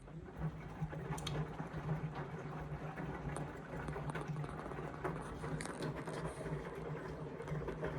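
Indesit washing machine's drain pump switching on suddenly and running with a steady hum while water gurgles through it, as the wash water is pumped out.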